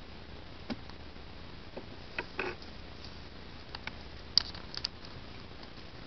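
A few scattered clicks and knocks of wooden beehive parts being handled as a frame is worked loose from the hive, the loudest a sharp knock a little past the middle.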